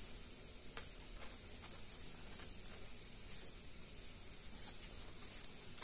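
Faint handling noise of hands turning and pressing a foam-sheet craft piece, with a few soft ticks and rustles scattered through.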